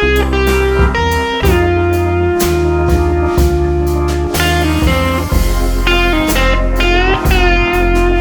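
Background music: blues-style electric guitar with bending slide notes over bass and drums at a steady beat.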